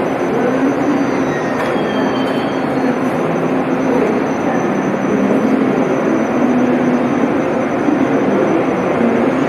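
Deutsche Bahn ICE high-speed train rolling slowly along the platform, a steady rumble of running gear with a hum underneath. A faint high squeal comes briefly about two seconds in.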